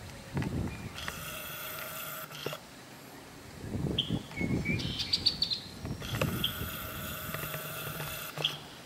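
The camera's zoom motor whines twice, each time for a second or two, starting and stopping sharply. Between the two, birds chirp a few short notes, over low rumbles of wind on the microphone.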